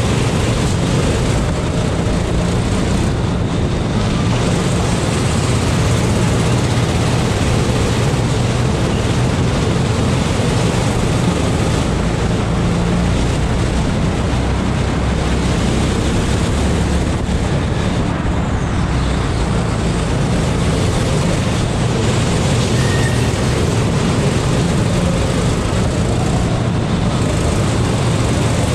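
Go-kart engine running continuously at racing speed, heard from on board the kart.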